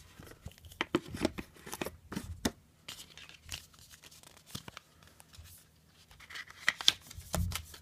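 Unboxing packaging and accessories being handled: irregular rustles, crinkles and small clicks and taps, with a few sharper clicks near the end.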